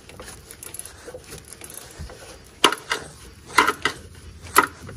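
Vintage Snap-on swivel-head ratchet on extensions working loose a GM oil pressure sensor that is still too tight to turn by hand. There is light clicking at first, then three loud rattles of ratchet clicks about a second apart near the end.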